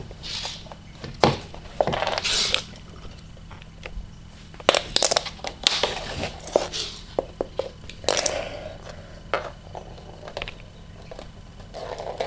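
A roll of sellotape being batted about a hard floor by a cat's paws: irregular clicks, taps and short scraping rustles, with a quick run of sharp clicks about five seconds in.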